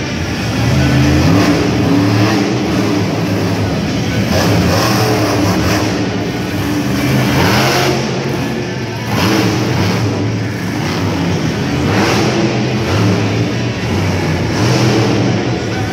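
Monster truck's supercharged V8 engine revving hard, its pitch rising and falling again and again as the truck is driven through freestyle moves, including standing up on its front wheels.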